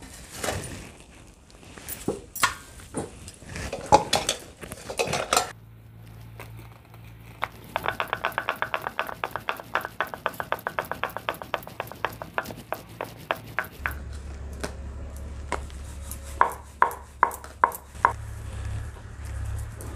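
Kitchen clatter of steel dishes and utensils. Then a rolling pin clacks on a rolling board in an even run of about four or five clacks a second as a paratha is rolled out. Near the end come a few sharp clinks of a steel spoon in a small steel bowl of ghee.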